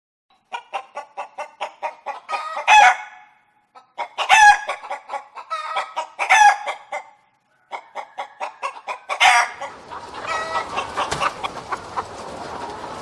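A hen clucking in quick runs that build to a loud squawk, three times over. From about ten seconds in, a busier, steadier layer of several fowl calling together.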